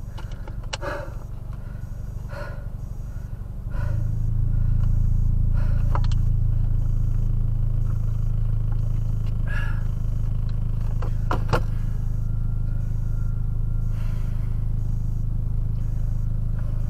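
Steady low hum from the car, which becomes louder about four seconds in and then holds, with a few faint clicks and knocks.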